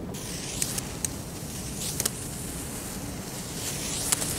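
The lit fuse of a small candy-wrapper firecracker hissing and sparking, with a few faint crackles as sparks spit off.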